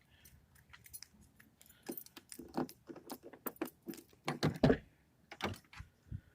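Irregular light clicks, rattles and knocks of things being handled or moved about, with the loudest knocks about four and a half seconds in.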